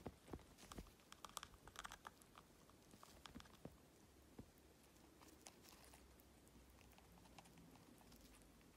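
Faint, quick clicks and taps of an African grey chick's beak working in a plastic cup of soft food, busiest in the first few seconds and then thinning out to occasional soft clicks.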